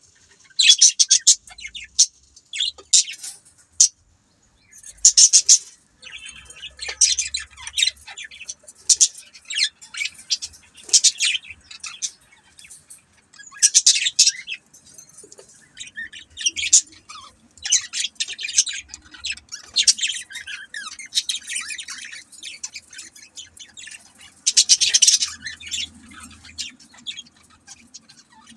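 Budgerigars chirping and chattering in bursts of quick high chirps, separated by short pauses.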